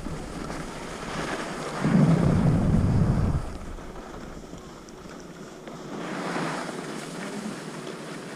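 Wind buffeting the action-camera microphone while skiing downhill, with the hiss of skis sliding over packed snow that swells and fades. A loud burst of low wind rumble comes about two seconds in and lasts over a second.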